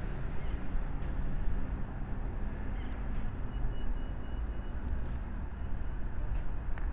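Open-air city traffic ambience: a steady low rumble of traffic, with a few faint high chirps and a brief thin whistle about three seconds in.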